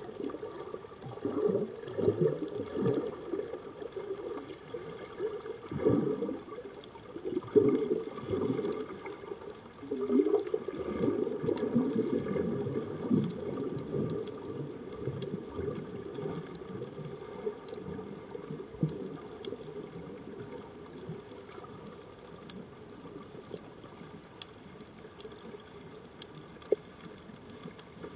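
Muffled underwater bubbling and gurgling from a scuba diver's exhaled regulator bubbles, in irregular surges that are busiest in the first half and ease off after. Faint scattered ticks sound through it.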